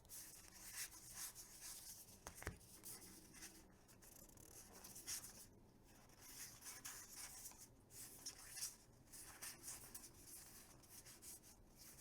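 Faint, soft papery swishes, one after another: tarot cards slid off one another by hand while the deck is counted.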